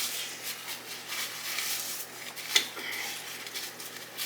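Close-up eating sounds: irregular crunching and chewing of hot-Cheeto-crusted lobster tail, with one sharp click about two and a half seconds in.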